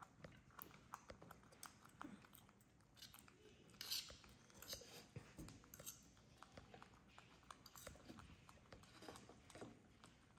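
Baby macaques eating noodles: faint chewing and mouth sounds, broken by many small clicks and ticks, with a louder cluster about four seconds in.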